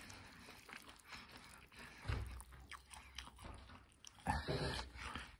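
A person chewing a mouthful of noodles close to the microphone, with small wet clicks and crunches. A louder, brief noise comes a little after four seconds in.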